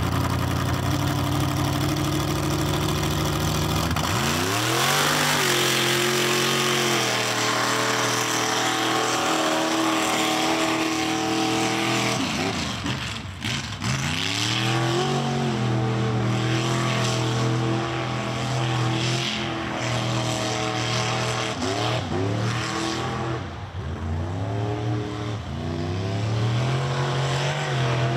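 Mud bog race truck's engine revving hard. Its pitch sweeps up sharply about four seconds in, then dips and climbs again several times as the throttle is worked.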